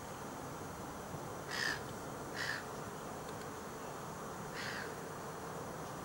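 A bird giving three short calls over a steady background hiss: two in quick succession about a second and a half in, and a fainter one later.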